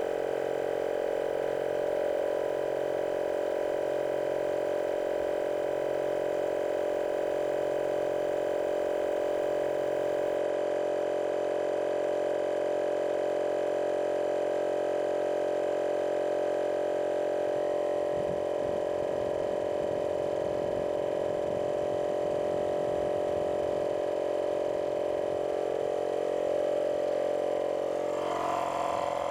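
Avid digital air compressor (portable tire inflator) running steadily while pumping up a car tire from about 25 psi, a constant mechanical hum that holds one pitch.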